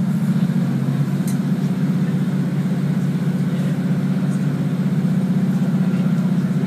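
Steady low hum of a diesel multiple unit's underfloor engine, heard inside the carriage as the train runs slowly along the station platform.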